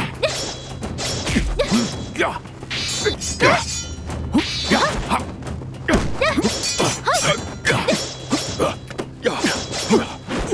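Film fight sound effects: a rapid run of punch and kick impacts and swishes, with short grunts, over a low steady music drone.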